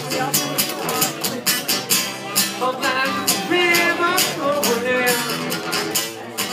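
Acoustic guitar strummed in a steady rhythm, with a voice singing a melody over it, most clearly in the middle.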